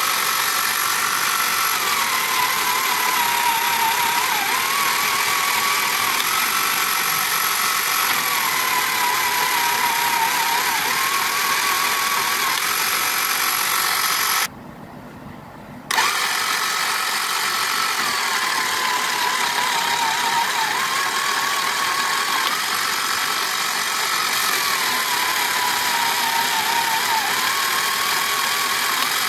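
Tomy Hit and Missiles toy's small electric motor (a replacement) and plastic gear train running with a steady whirr and a whine that sags in pitch and recovers in a repeating cycle about every six seconds. It switches off about halfway through and starts again a second and a half later.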